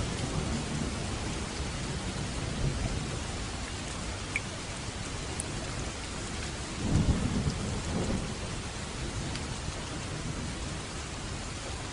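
Steady rainfall with low rumbles of thunder; the rumble swells loudest about seven seconds in, then fades back under the rain.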